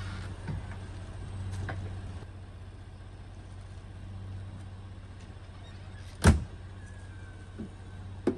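Camper van's side entry door shut with a single sharp slam about six seconds in, after a few lighter knocks and clicks of the door and step being handled. A steady low hum runs underneath.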